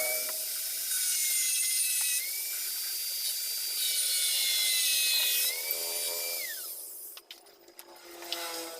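A small power tool running with a high, steady whine and some hiss, its pitch dipping briefly now and then. About five and a half seconds in it winds down, the pitch falling away, and a few sharp clicks follow.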